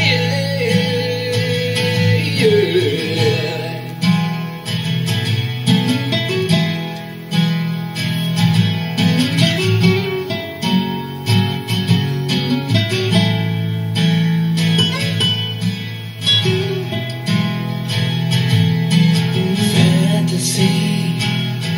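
Music led by strummed guitar, with a steady beat and a low bass line.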